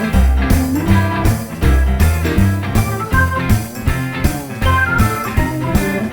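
Background music: a guitar-led blues-rock track with a steady beat and bass.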